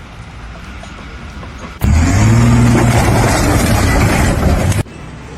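A loud engine running with a slight rise and fall in pitch for about three seconds; it starts and cuts off abruptly, as at edits.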